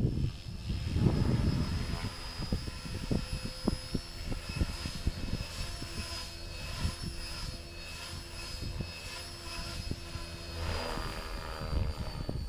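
Gaui X5 electric radio-controlled helicopter in flight: the motor's high whine and the rotor whir carry on steadily, swelling and fading as it moves about, with the pitch rising near the end as it climbs.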